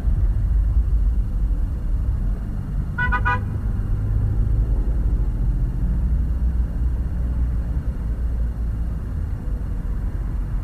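A car horn gives a rapid run of short toots, lasting under half a second, about three seconds in, over a steady low rumble.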